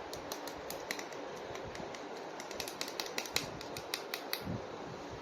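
Plastic action-figure toys being handled, giving a run of small, sharp, irregular clicks that stop near the end, over a steady hiss.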